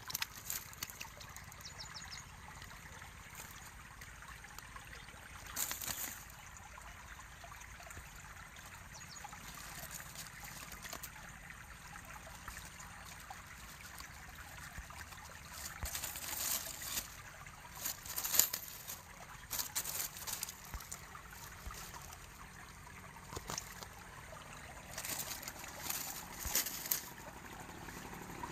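A small stream trickling steadily, with bursts of rustling and crackling from a plastic bag and dry reeds being handled, loudest a little past halfway.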